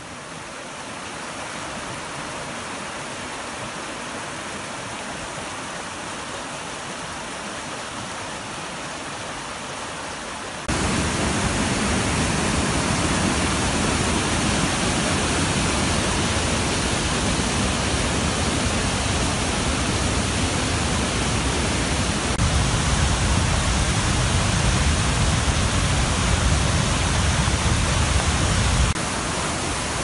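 Creek in flood, swollen by heavy rain: a steady rush of turbid whitewater. It jumps much louder about ten seconds in, to the churning roar of the rapids at the brink of the falls, and drops back somewhat just before the end.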